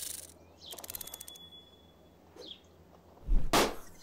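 Rapid, even clockwork ticking from a wind-up gnome's mechanism, in a short run about a second in, then a brief loud burst of noise near the end.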